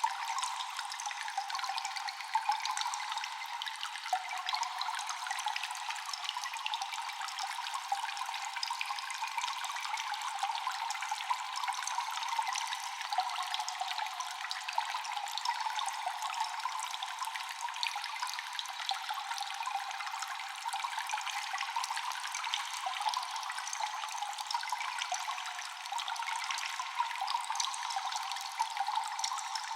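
Water dripping and trickling constantly in a cave, many small drops falling close together over a steady wash of running water, thin with no low end.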